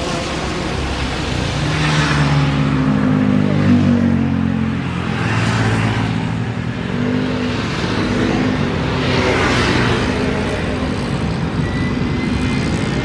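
Jet airliner engines: a steady, loud roar with low tones that shift in pitch, swelling and easing every few seconds.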